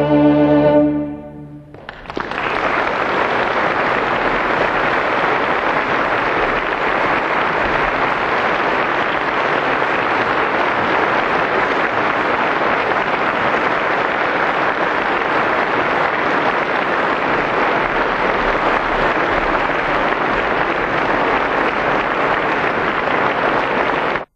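A string quartet holds its final chord for about a second and it dies away. Then an audience bursts into steady, dense applause that runs on until it cuts off abruptly.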